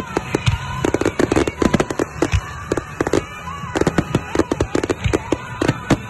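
Aerial firework shells bursting in a dense barrage, several sharp bangs a second, with music playing underneath.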